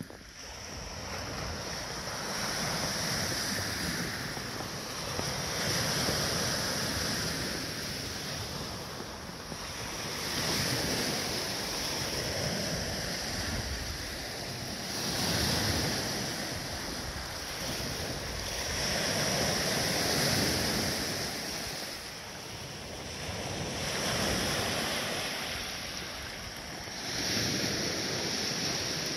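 Lake Michigan waves washing onto a pebbly shore, the rush swelling and easing every four to five seconds, with wind on the microphone.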